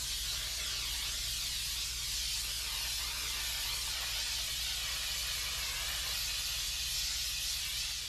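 McCulloch steam cleaner's handheld nozzle hissing steadily as it jets steam onto a polyester seat belt's fabric.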